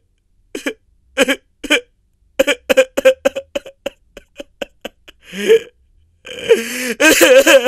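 A man's voice in a run of short, choked outbursts that come faster through the middle, then a longer cry about five and a half seconds in and a long, strained wail near the end.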